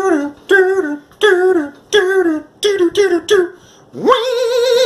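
A voice singing a short melody in about seven separate notes, then swooping up about four seconds in into a long held note with vibrato.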